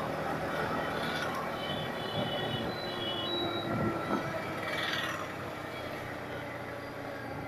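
Yamaha MT-15 V2's 155 cc single-cylinder engine running steadily while cruising in fifth gear, mixed with wind and road noise.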